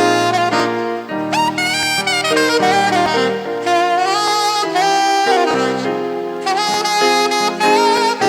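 Saxophone playing a slow melody with vibrato over sustained backing chords.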